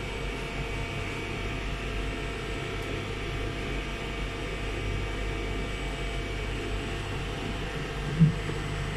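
Steady low hum of an idle CNC machining centre, its program finished and its fans and pumps running. A short sound comes a little after eight seconds in, and a low steady tone joins the hum just after.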